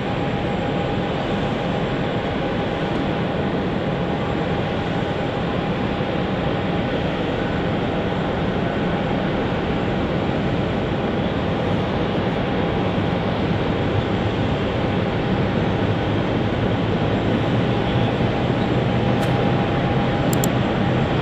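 Airliner engines running, a steady loud rush with a constant tone through it, growing slightly louder near the end.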